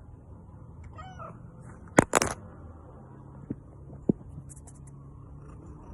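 A cat meows faintly once, then two sharp knocks come close together about two seconds in, followed by two lighter taps.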